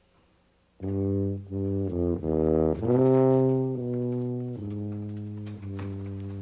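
Low brass instrument playing a short musical phrase of separate notes, beginning about a second in and ending on a long held low note.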